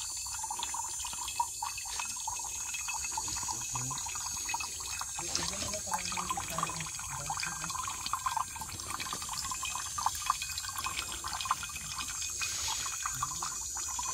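Spring water trickling and dripping from a rock overhang into the open mouth of a stainless steel bottle, a steady patter of small drips and splashes as the bottle fills.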